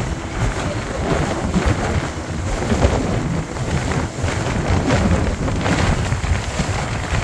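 Strong wind buffeting the phone's microphone on the open deck of a moving boat: a loud, uneven rumble of gusts with no let-up.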